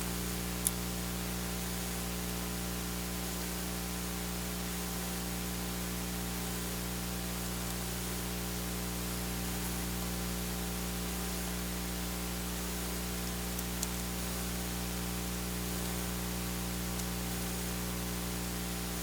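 Steady hiss with a low electrical hum, the recording's own noise floor, with one short click about a second in.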